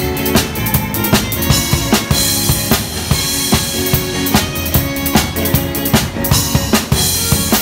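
Live band playing an up-tempo number: a drum kit drives it with steady bass drum, snare and cymbal hits under electric bass and sustained melody lines.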